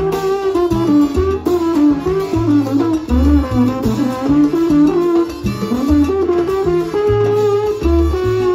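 Live salsa band: a trombone plays a moving melodic line over a plucked upright bass and congas.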